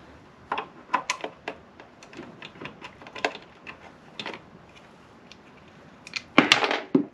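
Light, irregular clicks and taps of a red plastic rear-light lens being handled and pressed against its housing, with a louder burst of clicking and rattling near the end.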